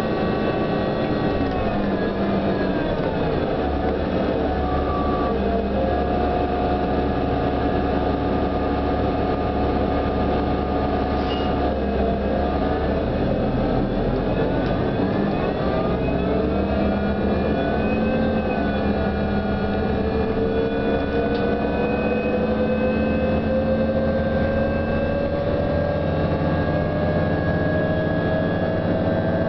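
New Flyer DE42LFA diesel-electric hybrid bus heard from inside while driving: a steady low drone under several whining tones. The whines drop in pitch a few seconds in, climb again midway, and one whine rises steadily through the last third as the bus speeds up.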